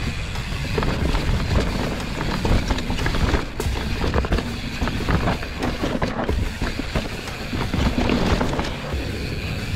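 Mountain bike ridden fast over a rough dirt trail: wind buffeting the microphone, a steady rumble from the tyres, and frequent short rattles and knocks as the bike takes bumps.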